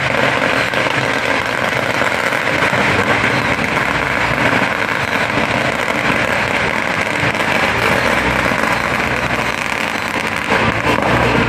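Motors of small canal boats running steadily as the boats approach, a continuous loud engine noise with a low hum underneath.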